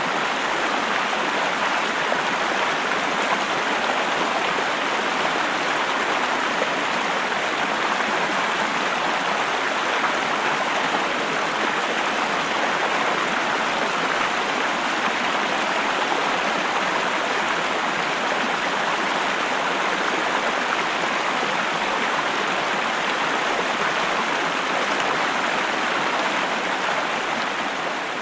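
Düden Waterfalls: a steady, unbroken rush of falling water.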